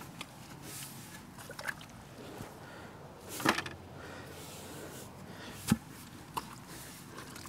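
Post hole digger jabbing into mud and standing water at the bottom of a hole, with a few separate wet strikes. The loudest comes about three and a half seconds in and another just before six seconds.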